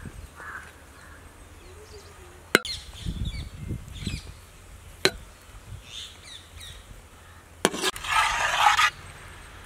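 A metal ladle or spatula knocks sharply against a large aluminium cooking pot three times, with small birds chirping in between and a crow cawing once at the start. About a second of loud scraping comes near the end.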